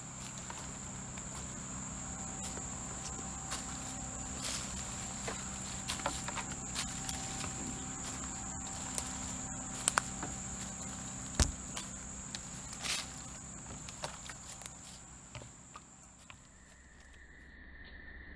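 Insects, crickets or similar, chirring with a steady high tone that stops near the end as a lower-pitched insect tone takes over. Irregular footsteps crunch and knock on rough ground, over a faint low hum.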